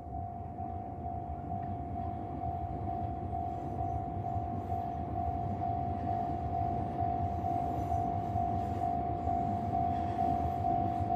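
Japanese railway level-crossing warning bell ringing with an even, repeating ding, about two a second. Under it a passing train's low rumble grows steadily louder.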